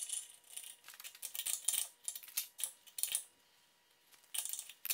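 A wrench clicking and clinking on a steel nut as the nut is turned along a bolt, jacking apart the steel arms of a welded contact-wheel fork that pulled together during welding. It makes irregular clusters of light metallic clicks, pauses, then gives a short burst near the end that stops abruptly.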